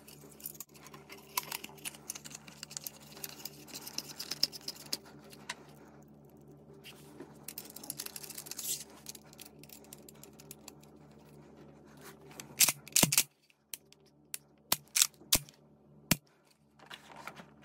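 Hands assembling and handling a Benelli M2 SP semi-automatic shotgun: rubbing and light scraping of parts, then a quick cluster of loud, sharp clicks and clacks about thirteen seconds in, followed by a few single sharp clicks.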